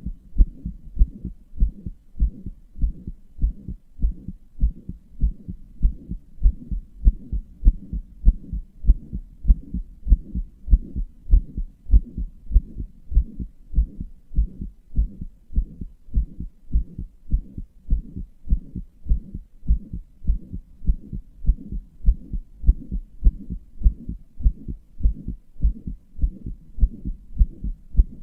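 A human heartbeat heard close up: a steady, even run of low, dull beats. The owner describes it as murmuring, the sound of a heart murmur.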